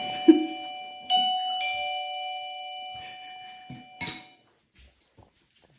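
The dogs' own doorbell chime ringing a two-note ding-dong, a higher note and then a lower one. A second ding-dong starts about a second in and fades out over the next few seconds. A brief low thump comes just after the start, and it is the loudest moment.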